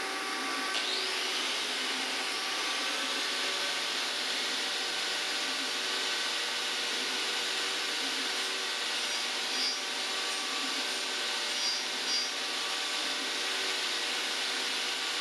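Angle grinder fitted with a Graff Speedcutter carving wheel, its motor whine rising as it comes up to speed about a second in. It then runs steadily, shaving a wooden spoke blank on a duplicating lathe.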